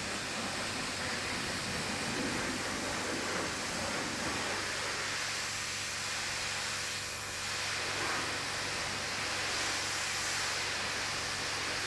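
High-pressure car wash wand spraying water onto a car body, a steady hiss of the jet, with a steady low hum underneath.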